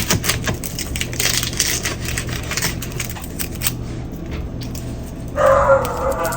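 Kitchen tap water running briefly to rinse dirt off an onion, after a few knocks and clicks of handling at the counter. Near the end a dog barks once.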